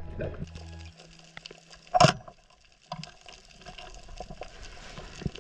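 Underwater sound picked up by a diver's camera on a reef: a watery hiss with scattered faint clicks and crackles, and one short loud gushing burst about two seconds in. A steady low hum stops about a second in.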